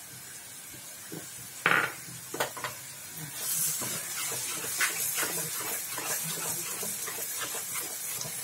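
Spatula stirring and scraping tomato purée into frying spice paste in a non-stick wok, with a sharp clank of the utensil against the pan about one and a half seconds in. From about three seconds in, a steady sizzle of the masala frying runs under repeated scrapes.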